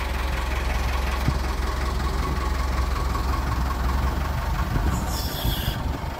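Forklift engine running steadily at idle with a low rumble, holding a lifted truck cab; a brief hiss comes in about five seconds in.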